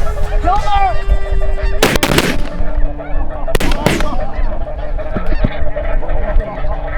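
A flock of snow geese honking and calling throughout, with a volley of shotgun shots about two seconds in and another pair just under four seconds in.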